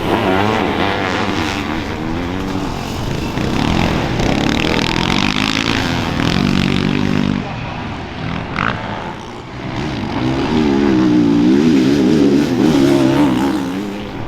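Several motocross racing engines revving up and down as machines pass on the track, with falling and rising pitch as they shift and throttle. It dips about two thirds of the way through, then swells to its loudest as a machine passes close.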